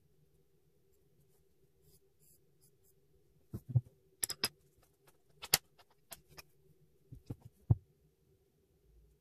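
Faint pencil scratching on paper, then pens being handled on a wooden desk: a pencil set down with a light knock and a marker uncapped, giving a run of sharp clicks and a few dull knocks about halfway through.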